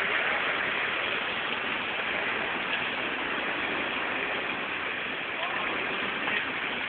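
Heavy rain mixed with small hail pouring down steadily, a hard downpour with a few faint ticks.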